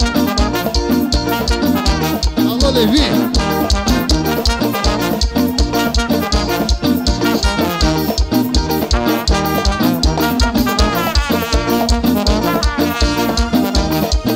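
Lambadão dance music played by a live band, with a steady fast beat.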